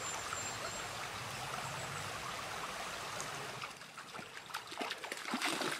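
A mountain stream rushing steadily, dropping to a quieter flow after about four seconds, with a few small clicks and knocks near the end.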